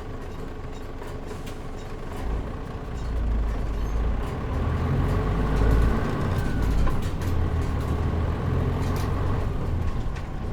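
Onboard sound of a Mitsubishi Fuso Aero Star KL-MP37JM city bus's diesel engine, with the air conditioning off: steady and fairly quiet for the first two seconds, then from about two seconds in it grows louder with a deep low drone as the bus pulls away and picks up speed.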